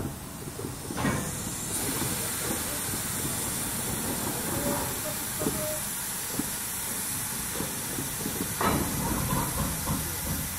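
BR Standard Class 5MT steam locomotive no. 73082 standing with steam hissing steadily, the hiss coming on suddenly about two seconds in. Near the end a louder rush of steam joins it as the cylinder drain cocks blow.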